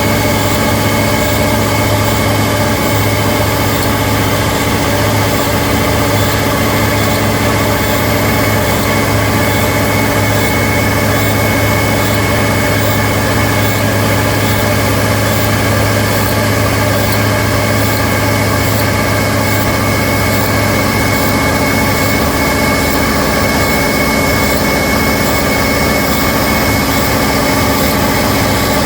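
CNC machine running: a steady mechanical hum with several held tones, including a high whine. The low part of the hum eases off about three quarters of the way through.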